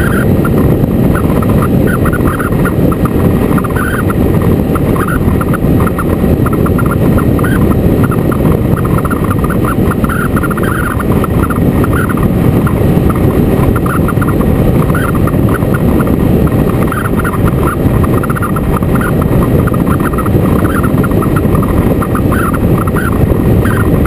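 Motorcycle on the move: a loud, steady rush of wind on the microphone with the engine running underneath, unchanging throughout.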